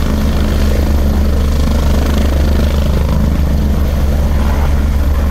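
Helicopter with its main rotor and engines running at speed as it touches down on a helipad: a loud, steady, low drone with a hiss of rotor wash over it.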